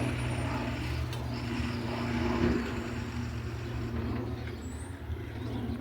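Sand truck's engine idling steadily, with a single sharp knock about a second in.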